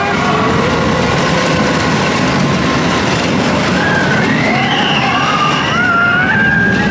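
Roller coaster train running fast along its track with a steady rumble, and a high, wavering wail rising over it in the second half.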